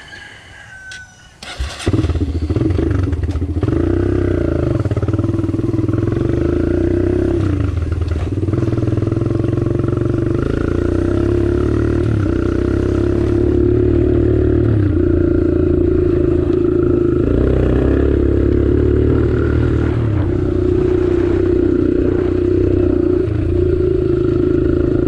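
Kawasaki KLX140 dirt bike's single-cylinder four-stroke engine starting up suddenly about two seconds in, then running as the bike is ridden, its pitch rising and falling a little with the throttle.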